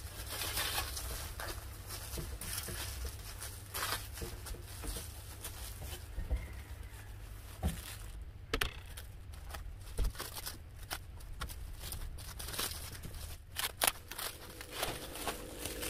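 Clear plastic film crinkling and rustling as hands wrap it around a dyed shirt bundle, with scattered sharp crackles.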